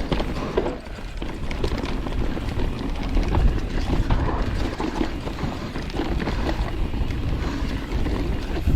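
Mountain bike rolling fast down a dirt trail: tyres on dirt with the bike rattling over bumps, and wind rumbling on the microphone.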